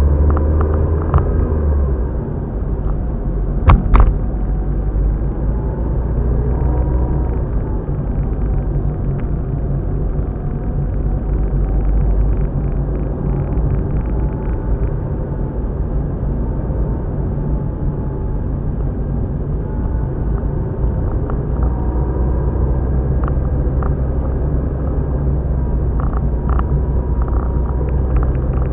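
Steady low rumble of a car driving along at road speed. A single sharp knock comes about four seconds in.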